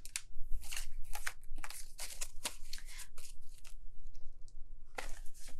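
Paper banknotes and a card rustling and crinkling against clear plastic envelopes as a stack of cash is handled and tucked into a binder's envelope pocket. Irregular quick crinkles and light taps, easing off a little before the end, then picking up again.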